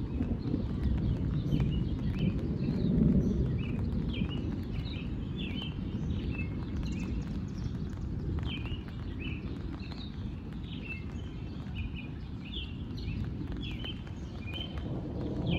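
Birds chirping in short repeated notes over a steady low rumble that swells about three seconds in.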